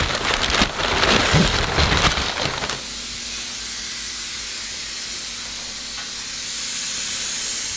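Dirt-bike parts being handled and worked into place: a couple of seconds of rubbing, knocking and rattling of the subframe against the bike, then a steady hiss for the rest of the time.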